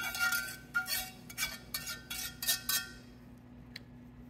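Wire whisk scraping out a cast-iron skillet over a stainless steel mixing bowl: quick metallic clinks with a ringing tone, stopping about three seconds in.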